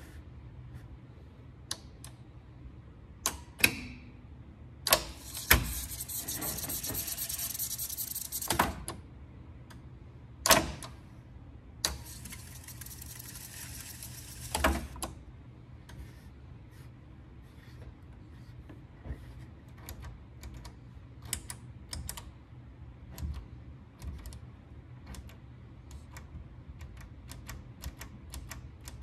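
TEAC A-4070G reel-to-reel tape deck worked by hand. Its transport buttons clunk, and twice the reels spin fast with a steady whirring rush lasting about three seconds each, ended by a loud clunk. In the second half come lighter clicks from switches and knobs on the front panel.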